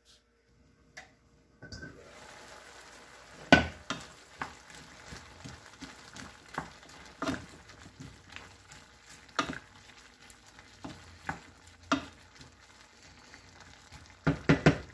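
A wooden spatula stirring shrimp and chayote squash in a nonstick frying pan while the sauce sizzles, with repeated knocks and scrapes of the spatula against the pan. The sizzle starts about two seconds in, and a quick run of knocks comes near the end.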